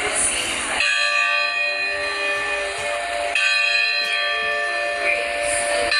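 Carillon bells ringing. A new cluster of bells is struck about a second in and again about halfway, each ringing on with many overlapping tones.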